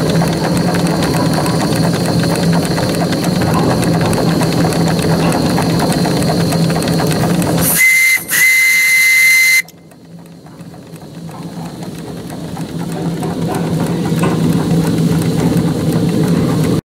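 Model Ransomes compound traction engine under steam, running with a steady mechanical noise and a low hum. About eight seconds in, its steam whistle, pulled by its cord, gives a short blast and then a longer one of about a second and a half. Afterwards the running noise comes back gradually.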